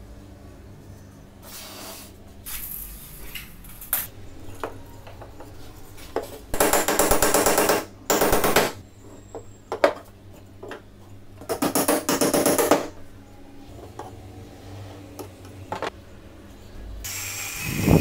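Cordless drill running in three short bursts of a second or so, between light knocks and clicks of wooden strips being handled. Near the end the drill spins up again with a steady whine as it bores into the wooden frame.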